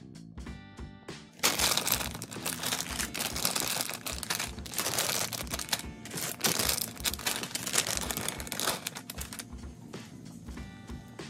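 Clear plastic bags of building-brick pieces crinkling and rustling loudly as they are handled. The crinkling starts about a second and a half in and dies down near the end, over background music.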